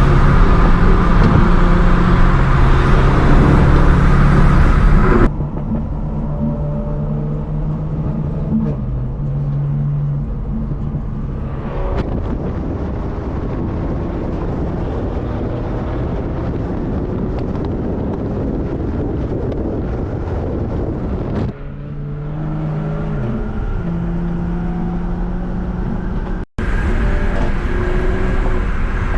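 A single-turbo BMW 1 Series engine runs with a steady engine note for the first five seconds or so. Then the sound cuts abruptly to other car engines idling and driving, with more sudden cuts later and a brief dropout near the end.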